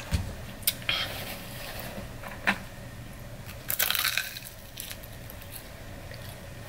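Close-up crunchy bite into an extra-crispy fried chicken wing, a dense crunch about four seconds in, the loudest sound. A few sharp clicks come before it, and quieter chewing follows.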